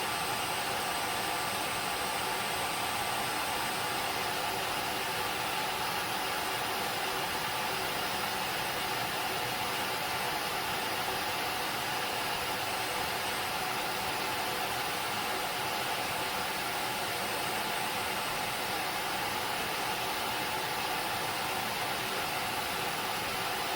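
Tineco Floor ONE S7 PRO wet-dry floor cleaner running steadily on its dock in the air-drying stage of its self-clean cycle, its motor blowing air through to dry the brush roller.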